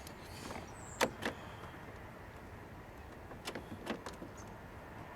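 A few sharp plastic knocks and clicks from a car door trim panel being pressed down onto its hook clips. The loudest comes about a second in, and a second pair about three and a half seconds in.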